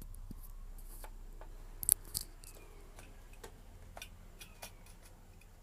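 Scattered sharp clicks and light knocks of plastic laptop parts being handled and pried apart, loudest in a quick cluster about two seconds in, over a low steady hum.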